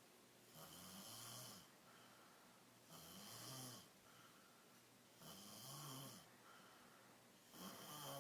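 A person snoring quietly in their sleep: four snores about two and a half seconds apart, each about a second long with a low buzz and a breathy hiss.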